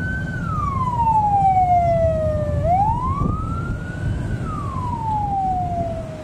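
Ambulance siren wailing, its pitch rising and falling slowly, about one sweep every three seconds, over a low rumble.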